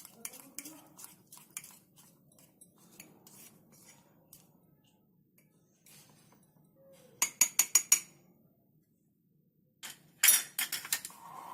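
A spoon stirring cake batter in a cup, scraping and clinking against the sides, with a quick run of about six sharp clinks a little past halfway and another burst of clinks near the end.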